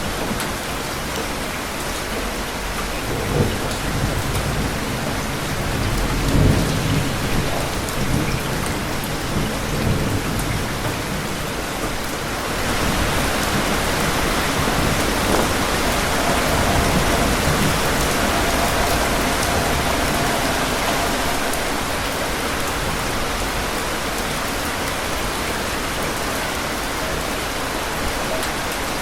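Steady heavy rain with thunder rumbling low a few seconds in and again a few seconds later. About twelve seconds in the rain grows heavier and louder, then eases a little.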